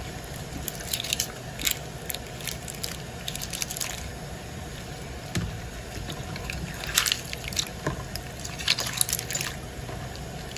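A hand swishing and squeezing red onion skins in a plastic tub of water, with irregular small splashes and wet squishing, a few louder splashes in the second half.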